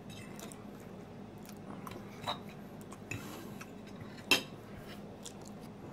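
Metal fork clicking against a dish a few times while eating pie, the sharpest click about four seconds in, over a faint steady hum.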